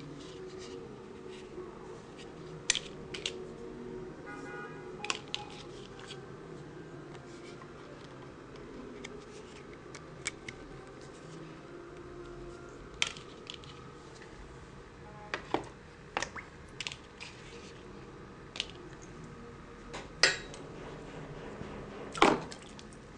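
Irregular clicks and knocks of a fishing knife and its plastic sheath with belt clip being handled, over a steady low background hum; the loudest knocks come near the end.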